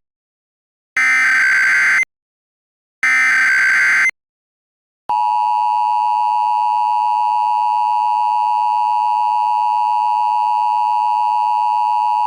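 Emergency Alert System SAME header: the last two of three short, raspy data bursts, each about a second long with a second of silence between, then the steady two-tone EAS attention signal that starts about five seconds in and holds.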